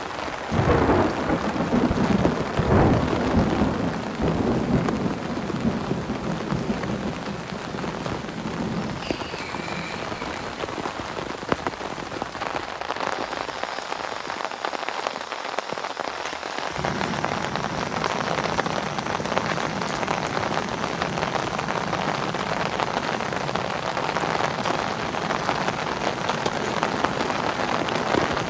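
Steady rain falling on a tarp shelter, with rolling thunder over the first few seconds.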